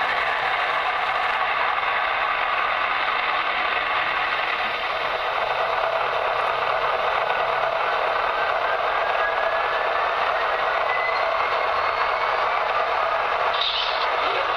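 Speaker of a model AC6000 diesel locomotive's sound system playing its engine sound, a steady mechanical running noise with a faint rising whine about halfway through. It is heavy with static, which the owner takes for a fault in the locomotive's speaker.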